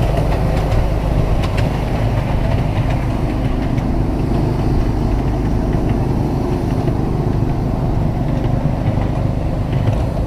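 Miniature railway train running along its track: the small locomotive's engine running steadily, with the low rumble of the cars rolling over the rails.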